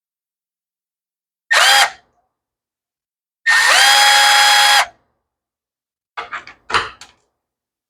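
Cordless drill-driver running in two short bursts, the second about a second long, each spinning up and then holding a steady whine as it backs screws out of a small two-stroke carburetor during teardown. A few light clicks of small parts being handled follow near the end.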